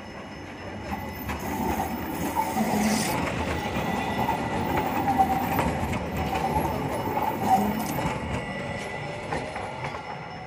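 A rail vehicle passing close by. Its running noise swells over the first couple of seconds, holds, and fades near the end, with rail clatter and brief wheel squeals.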